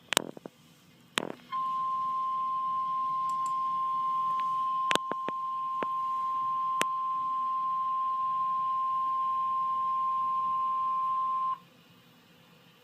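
Emergency alert warning alarm tone, the single 1050 Hz tone used ahead of a weather warning. It is one steady, loud, high beep held for about ten seconds, then cut off sharply. A couple of sharp clicks come before it, and a few more during it.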